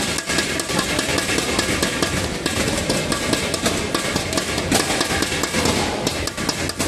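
Crowd of spectators at a badminton match: a constant din with many sharp claps or clicks running through it.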